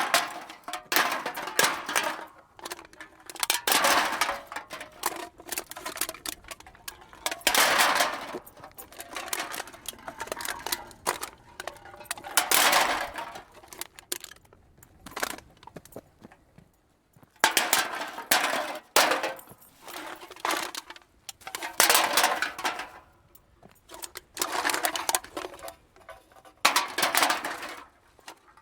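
Cans being dumped into a cart, recorded close up: repeated bursts of tumbling metallic clatter and clinking, a batch every second or two with short pauses between.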